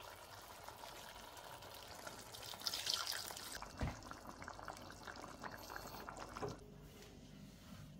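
Chicken pieces simmering in tomato sauce in a wide stainless-steel pan, with a steady fine bubbling and popping that is louder around three seconds in. There is a single thump just before four seconds.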